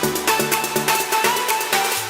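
Electronic background music with a steady beat and a synth melody over a sustained bass.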